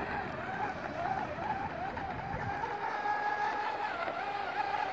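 Aquacraft 2030 electric motor of a PLTD mono RC racing boat whining at high speed. The whine is steady and high-pitched, and its pitch dips and rises now and then as the boat runs laps.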